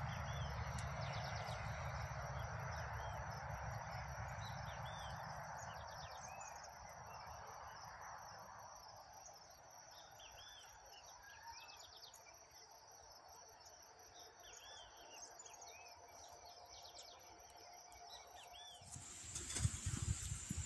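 Rural outdoor ambience: small birds chirping in short, repeated calls over a steady high-pitched insect drone. A low rushing noise fades away over the first several seconds. A burst of louder rustling comes near the end.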